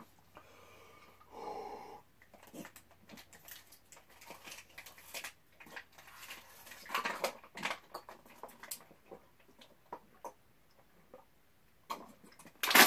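A person chugging from a plastic water bottle while squeezing it: a run of irregular gulps, swallows and crinkles of the plastic, with breaths between them. The loudest noise comes near the end.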